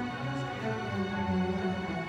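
Symphony orchestra playing, its bowed strings carrying sustained chords.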